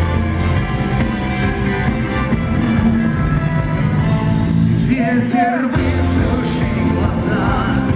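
Rock band playing live, with a singer's voice over the band. The bass drops out for about half a second about five seconds in, then comes back.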